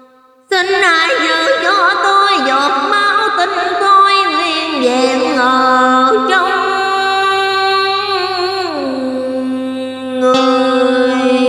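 Cải lương music starting about half a second in after a brief pause. A steady drone sits under a melody that bends, slides and wavers in pitch.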